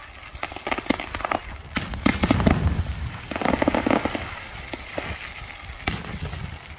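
Aerial fireworks shells bursting with sharp bangs and crackling, a dense run of bangs about two seconds in and another sharp bang near the end.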